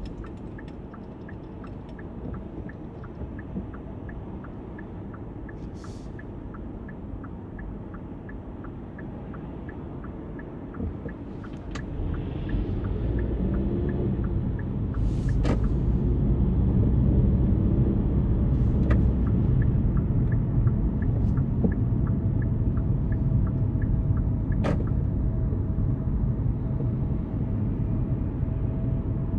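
Hyundai Kona Hybrid driving, with a steady low rumble of road and drivetrain noise. A faint, regular light ticking runs through the quieter first part; about twelve seconds in the rumble grows clearly louder as the car picks up speed.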